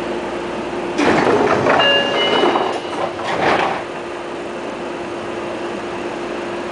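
Passenger doors of a Seibu 20000 series electric train working at a station stop: a sudden hiss and slide about a second in, a few brief high tones, a second swell, then it dies away after about three seconds. A steady electrical hum runs underneath.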